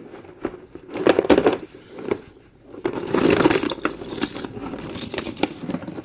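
Plastic fidget toys being rummaged through in a drawer: a run of clattering clicks and rustling, loudest about a second in and again around three seconds in.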